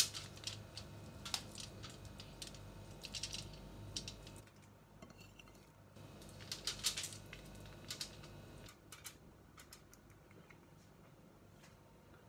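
Aluminium foil crinkling in several short spells of light crackling as a whole fish lying on it is handled and rubbed with spices, over a faint steady low hum.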